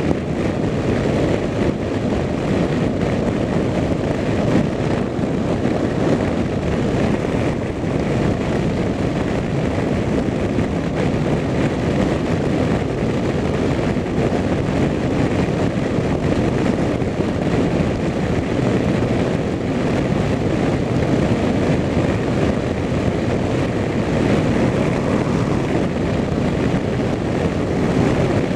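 Steady wind and road noise of a vehicle travelling at highway speed, with engine drone underneath and no change throughout.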